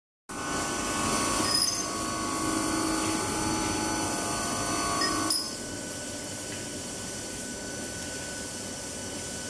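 Steady mechanical hum and whine of CNC machining-centre machinery, with a few sharp metallic clicks. About five seconds in, a click comes and the noise drops to a quieter steady hum.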